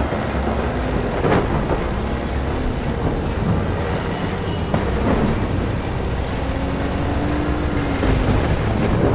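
Storm sound effects: a steady, dense rush of wind over a deep rumble, with a couple of faint sharp cracks and a faint howling tone that rises and falls.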